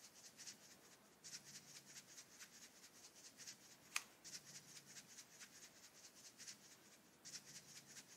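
Glitter shaken out of a small plastic dispenser bottle onto slime: a faint, rapid rustling patter of about four to five shakes a second in short runs, with one sharp click about four seconds in.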